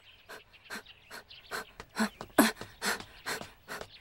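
A person running: short rhythmic sounds of steps or breathing, about two and a half a second, growing louder toward the middle as the runner comes closer.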